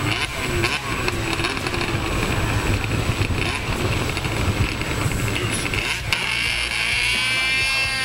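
Snowmobile engine running hard at high revs as the sled churns through deep powder snow, a steady drone with a higher whine coming in over the last couple of seconds.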